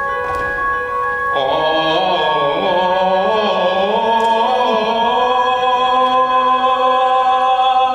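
Stage-musical singing with a held accompaniment chord: about a second and a half in, a man's voice comes in, climbs, then holds one long note with vibrato over the sustained chord.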